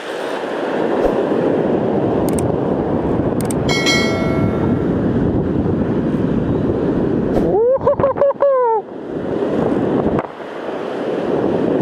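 Strong wind buffeting the microphone over breaking surf, a steady rumbling roar. About four seconds in a short ringing chime sounds, and around eight seconds, as the wind noise cuts out, a quick run of rising-and-falling electronic warbles plays.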